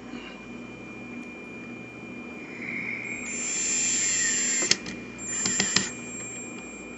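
Cordless drill/driver driving a strike-plate screw into the door jamb: the motor whirs for about two seconds, its pitch sinking as the screw tightens, and stops with a click, then runs again briefly with a few clicks.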